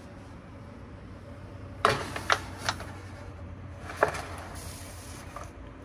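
Aluminium foil roasting tray set onto a wire oven rack and pushed in: a few light metallic clicks and knocks, three close together about two seconds in and one more near four seconds, over a steady low hum.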